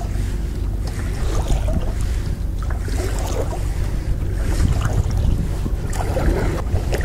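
Wind buffeting the microphone of a camera riding on a kayak, a steady low rumble, with light water splashes every second or two.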